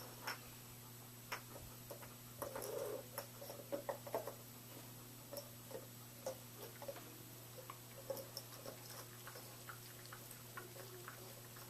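Dogs playing: faint, irregular soft clicks and taps, busiest a couple of seconds in and thinning out toward the end.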